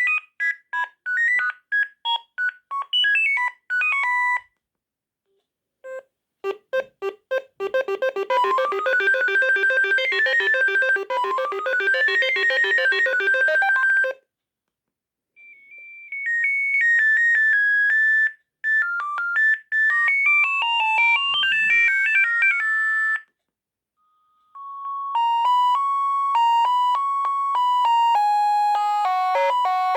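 Sagem MY 3022 mobile phone playing its built-in ringtones one after another: short synthesized polyphonic melodies, each cut off by a brief pause before the next one starts. Four tunes are heard in turn.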